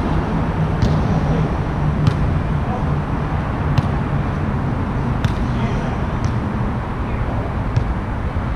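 Steady low rumble of road traffic on the overpass overhead, with about half a dozen sharp knocks spread through it, one of them a volleyball being hit a little before the middle.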